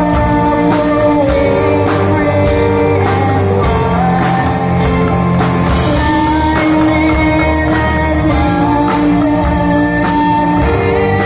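A rock band playing live: electric guitars over a drum kit, with long held notes.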